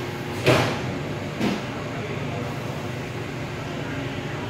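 Steady low hum of machinery and ventilation in a railway ferry's enclosed train deck, with two loud knocks about a second apart near the start.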